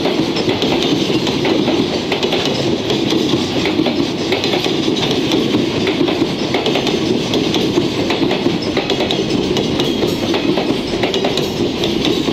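Loaded container flatcars of a freight train rolling past at close range: a steady, loud rumble of steel wheels on rail with continual clacking over the rail joints.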